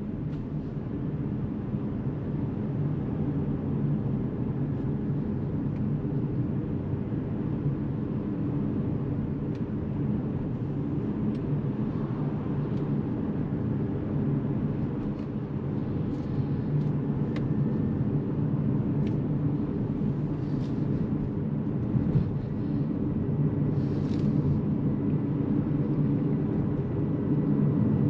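Steady road and tyre rumble inside the cabin of an Opel Mokka-e electric car driving at town speed. It grows slightly louder as the car speeds up, with a few faint clicks.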